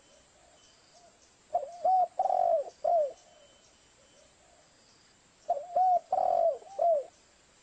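Spotted dove cooing: two phrases about four seconds apart, each a short run of about four coos ending in a falling note. It is a lure call for attracting wild spotted doves.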